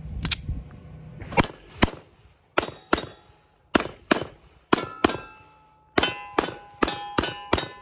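Glock 34 9mm pistol fired in quick pairs, four doubles about a second apart, then a faster string of five shots near the end. Steel targets ring with a metallic clang as they are hit.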